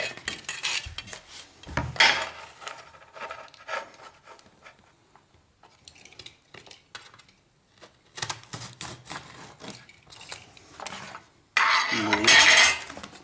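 Hand work on laminate flooring: scattered light clicks, taps and rubbing as boards and a cutting template are handled and marked. A louder scraping rush comes near the end.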